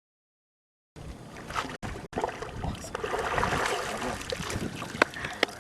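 Water splashing and trickling, starting about a second in, with a quick run of sharp clicks or knocks near the end.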